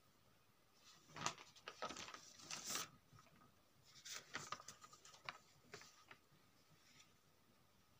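Sheets of paper rustling and crackling in two short bursts, one about a second in and one around the middle, as a handwritten page is taken away and the next sheet put in its place.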